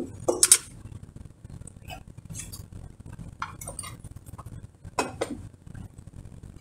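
Intermittent clinks and clatters of a metal mixing bowl being handled while chicken is pressed into breading, with sharp knocks about half a second in and again about five seconds in and lighter ticks between.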